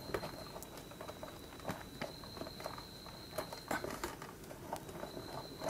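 Faint, scattered light clicks and rustles from handling a wire at a contactor, over a faint steady high-pitched whine.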